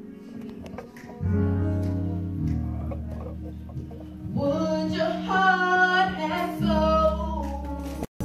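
Live gospel worship music: held instrumental chords over a deep bass, with a woman's voice singing a long, wavering line from about four seconds in.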